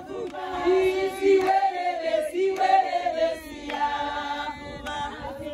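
A group of people singing a song together, several voices on long held notes.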